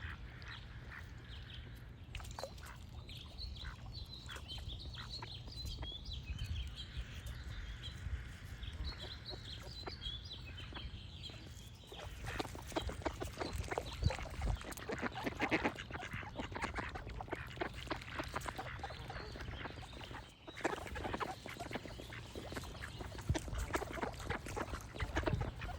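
Ducks quacking, with small birds chirping high above. For the first half the birdsong is to the fore; after about twelve seconds the quacking turns into a dense, continuous run of calls. A low rumble runs underneath.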